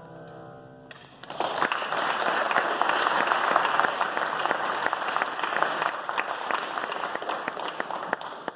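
A grand piano's final held chord dies away, then an audience claps for several seconds, easing off near the end.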